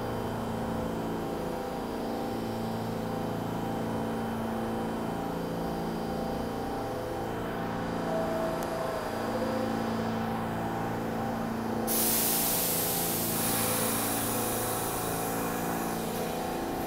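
An R46 subway train standing in the station with a steady, multi-toned hum; about twelve seconds in, a sudden loud hiss of air sets in, the air brakes releasing, and fades over a few seconds.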